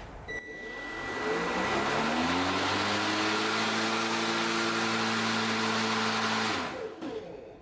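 Cordless lithium-ion electric lawnmower switched on: its motor spins up with a rising hum and whirr over about two seconds, runs steadily for about four seconds, then is switched off and winds down near the end.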